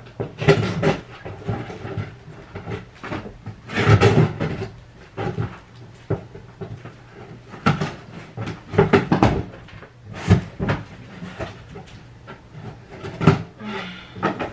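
Cardboard shipping box being opened and its packaging handled: a dozen or so irregular bursts of tearing, rustling and scraping, with knocks.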